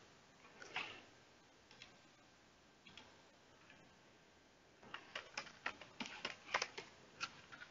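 Faint computer keyboard clicks: a few single clicks, then a quick run of keystrokes in the second half as a username is typed at a login prompt.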